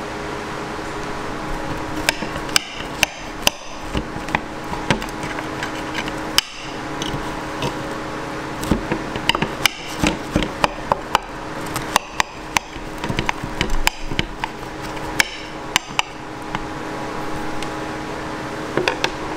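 Metal knife and fork clicking and tapping against a plate while cutting through a cream-topped waffle: an irregular run of short, sharp clicks. A steady hum continues underneath.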